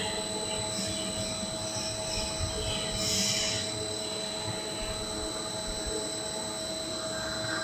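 Steady machine hum and hiss with a few constant high whining tones, a little louder for a moment about three seconds in.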